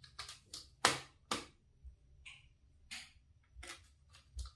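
A small screwdriver working screws into a Lenovo IdeaPad 320 laptop's chassis to fasten the motherboard: a dozen or so irregular sharp clicks and taps of the bit on the screw heads and frame, the loudest about a second in.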